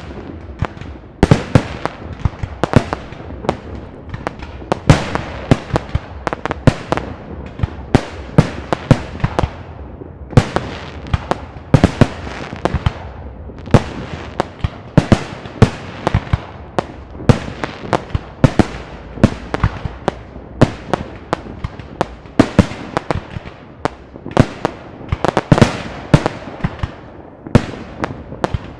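Fireworks display: shells bursting in a dense, irregular barrage of sharp bangs, often several a second, each trailing off in a brief echo.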